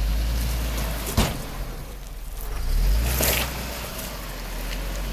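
Off-road 4x4's engine running at low revs as it crawls over rocks, swelling briefly about three seconds in. A single sharp knock sounds about a second in.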